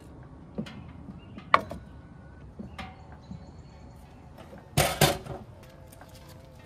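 Clatter of camp cooking gear handled on a wooden tailgate deck: a few light knocks, a sharp click about one and a half seconds in, then two loud clunks in quick succession about five seconds in as the two-burner camp stove is shut and packed away.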